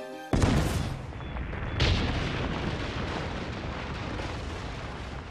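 Cartoon explosion sound effect of a gas blast set off by a match. A sudden blast comes about a third of a second in, with a second sharp blast near the two-second mark, then a long rumbling noise that slowly dies away.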